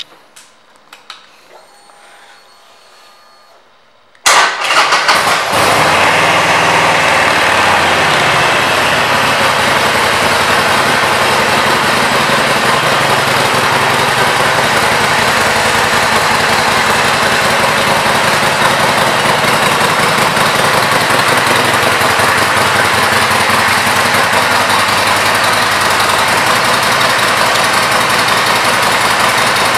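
2015 Harley-Davidson Forty-Eight's 1200 cc air-cooled V-twin starts about four seconds in, catching with a short uneven burst, then settles to a steady idle.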